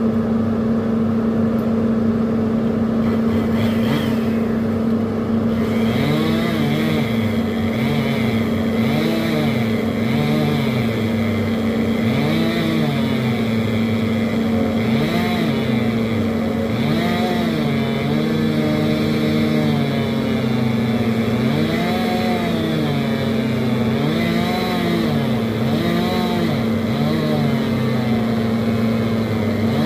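Kobelco excavator's diesel engine running at a steady speed. From about six seconds in, a second machine-like tone rises and falls in pitch over and over, about once every one to two seconds.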